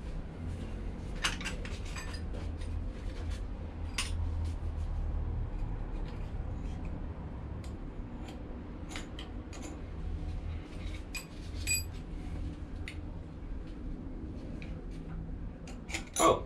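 Scattered light metallic clinks and taps of hand tools and parts against the cast-iron headstock of a milling machine being dismantled by hand, over a steady low rumble, with a louder knock near the end.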